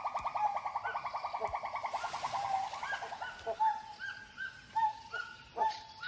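Animal calls. A fast trill of about ten notes a second slowly falls in pitch and fades out a little after three seconds. Separate short notes with an upward flick then follow, about two a second.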